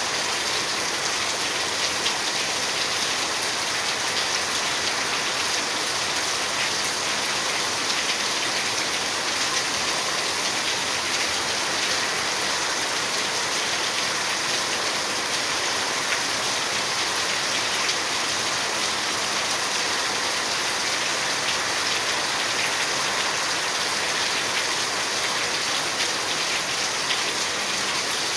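Steady rain falling, a continuous even hiss made up of countless small drop impacts on surfaces.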